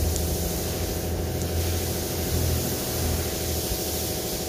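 Steady low engine-like rumble with a hiss over it, even and unbroken.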